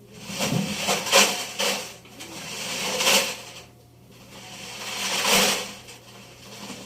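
Loose metal objects tumbling and clattering inside a turning Electrolux washing machine drum, a loud rattling swell about every two seconds over a steady motor hum.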